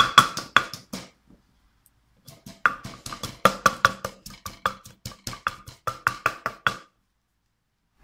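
Wooden pestle pounding red chilies in a clay mortar: quick, rhythmic knocks, several a second. They break off about a second in, start again after about a second and a half, and stop near the end.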